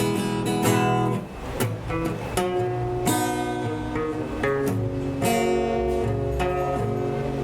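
Acoustic guitar strumming chords live, with a new strum roughly every second over sustained ringing notes.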